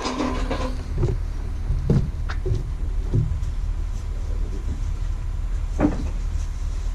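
Thumps and knocks of a boxed refrigerator being handled and carried onto a wooden porch, the loudest one near the end, over a steady low rumble.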